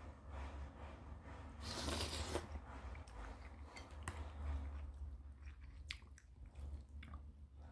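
A person eating instant noodles: chewing, with a longer hissing slurp about two seconds in. A few sharp clicks of the metal spoon and chopsticks against the ceramic bowl come later.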